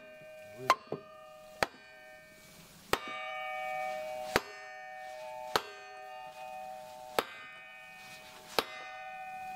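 Handle of a Japanese ryoba pull saw tapped butt-end down seven times, a sharp knock about every second and a half, each setting the steel blade ringing with a clear metallic tone that carries on between taps. The taps seat the blade's tang back into the wooden handle.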